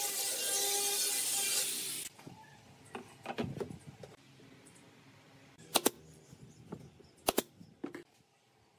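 An angle grinder with a sanding disc runs against the wooden rim with a steady whine for about two seconds, then cuts off abruptly. After that, wooden pieces are handled and set down on a workbench, with light knocks and a few sharp wooden clacks near the end, the loudest sounds here.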